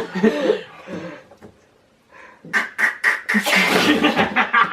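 A person imitating a car starting with their mouth: a few sputtering spits about halfway through, then a loud buzzing engine-like rumble.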